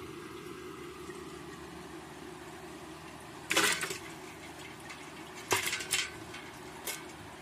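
Water splashing as a hand plunges into a basin of water after freshwater prawns: one splash about halfway through, then a quick flurry of two or three more near the end, over a steady low hum.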